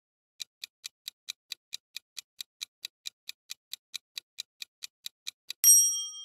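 Countdown timer sound effect: a clock-like ticking, about four ticks a second, then near the end a sudden, louder ringing chime that fades as time runs out.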